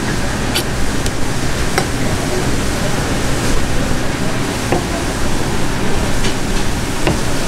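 Steady rushing background noise with a few scattered sharp ticks of a knife blade meeting a cutting board while a fish fillet is trimmed.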